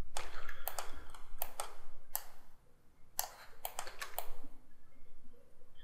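Computer keyboard and mouse clicks, irregular and in small clusters, stopping a little over four seconds in.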